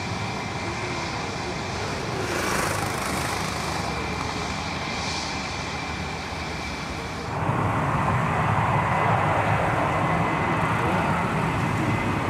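Airbus A321 airliner's jet engines running as it moves along the runway, a steady rushing noise with a thin high whine. About seven seconds in, the sound jumps to a louder, rougher rush.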